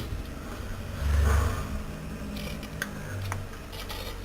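Electric drill running with a homemade twisted-steel bit boring through hardwood, nearly through the board. The motor tone shifts, louder and lower about a second in, with a few light ticks later on.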